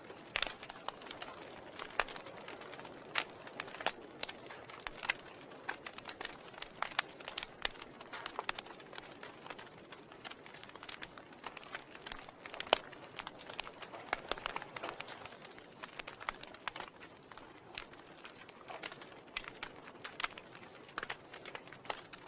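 Wood fire in a fireplace crackling, with frequent irregular sharp pops and snaps over a soft, steady hiss of the flames. One pop a little past halfway is louder than the rest.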